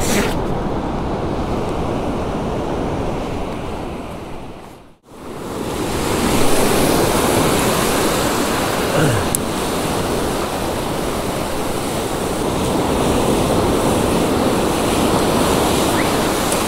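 Ocean surf breaking and washing up the sand, with wind on the microphone. The sound dips out briefly about five seconds in.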